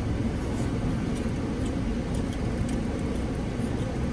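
Steady low rumbling background noise of wind and outside traffic, with a few faint small clicks through it.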